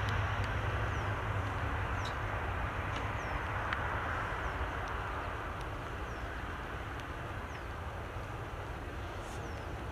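Aircraft engine rumble slowly fading away after a pass, a steady low drone with faint short bird chirps over it.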